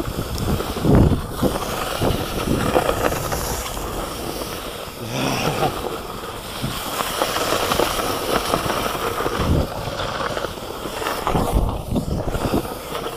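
Snowskate deck sliding over packed snow: a steady rough scraping hiss, broken by a few dull thumps.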